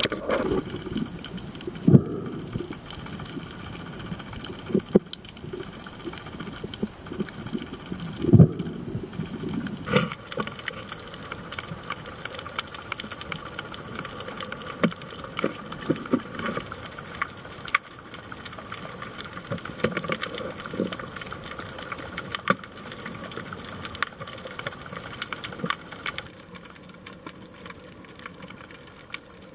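Underwater ambience picked up by a camera held below the surface: a steady hiss with faint crackle, broken by several sharp knocks in the first ten seconds or so.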